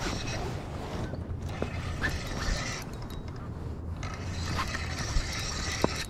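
Spinning reel being cranked to reel in line, in two spells with a short pause between.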